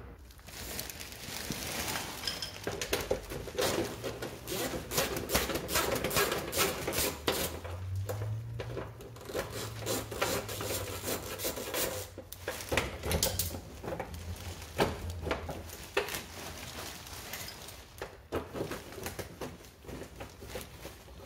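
Screwdriver working out the screws of a scooter's plastic side panel: many irregular clicks and small knocks of the tool against the screws and the plastic.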